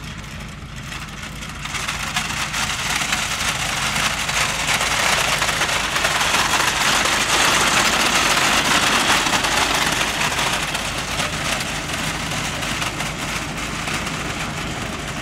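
A vehicle engine running steadily under a loud rushing hiss that builds over the first couple of seconds, peaks about halfway through and slowly fades.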